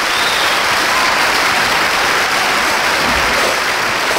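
Audience applauding steadily at the start of a live recording.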